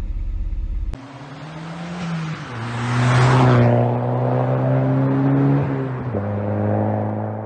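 For about a second, a 1991 Volvo 940's redblock four-cylinder engine idling, heard inside the cabin, cutting off suddenly. Then a car engine accelerates past, its pitch stepping down twice with a swell of noise about three and a half seconds in, and it fades out at the end.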